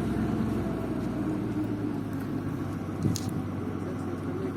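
Borewell drilling rig's engine running steadily with a low hum that eases slightly about a second and a half in. A single sharp knock sounds about three seconds in.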